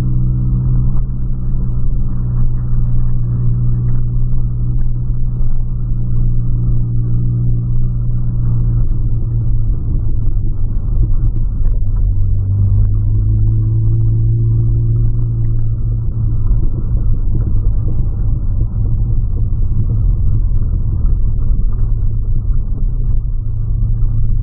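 Engine and road rumble inside the cabin of a moving 2008 Volkswagen Polo. The engine hum is strong at first, drops away about eight seconds in, comes back in the middle and then eases off again.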